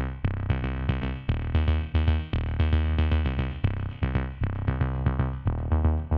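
Electronic background music: synthesizer notes over a drum-machine beat and a steady bass.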